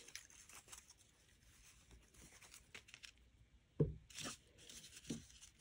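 Faint rustling of quilting fabric pieces and paper being handled on a table, with a few light knocks, the loudest nearly four seconds in.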